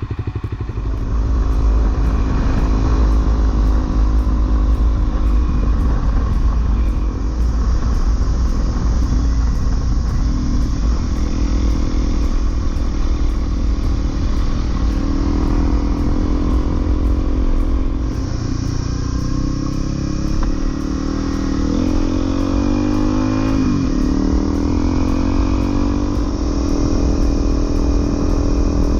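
Honda CRF250L's single-cylinder four-stroke engine running while riding, the revs rising and falling several times. A steady low rumble of wind lies underneath throughout.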